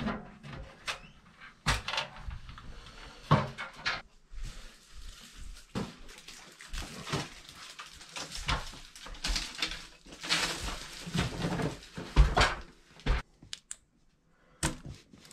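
Irregular knocks, bumps and scuffing rustles of a person climbing up into a cramped attic and moving about in it.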